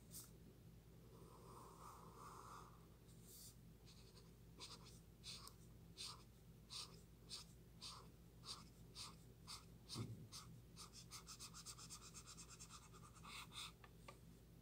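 Marker tip rubbing across paper, faint: a steady run of short colouring strokes, about one and a half a second, then a quicker flurry of small strokes near the end.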